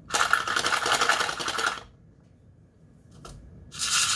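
Small plastic yogurt cups shaken in turn, one holding dry lentils and the other pennies, giving a rattling burst of under two seconds and a second burst starting near the end.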